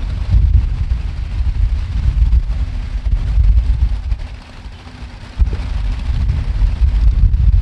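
Low, gusty rumble of wind buffeting the microphone, with a lull about four and a half seconds in that ends abruptly.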